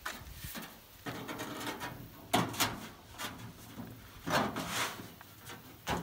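Steel baffle plate scraping and clanking against the inside of a steel hot water heater tank as it is worked into place: several scrapes and knocks, the loudest about two and a half seconds in.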